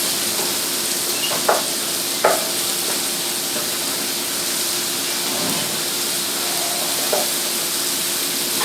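Chopped garlic sizzling steadily in butter and oil in a hot sauté pan, stirred, with a few light taps against the pan, about a second and a half in, at two seconds and near seven seconds.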